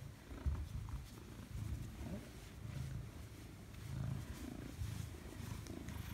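A Maine Coon cat purring close to the microphone, a low continuous rumble rising and falling in regular swells, with light rustling of a hand stroking its fur.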